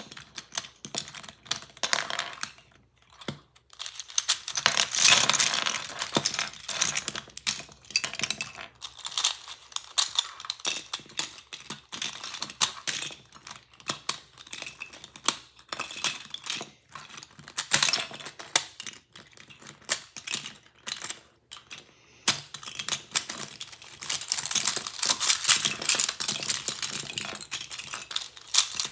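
Loose plastic pieces of disassembled cheap Rubik's cubes clicking and clattering as they are handled, sorted and set down, in a rapid, irregular patter.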